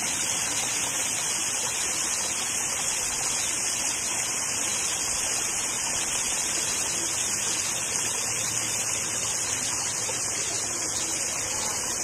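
Steady rushing of falling water from a waterfall, an even hiss that is strongest in the high range and does not change.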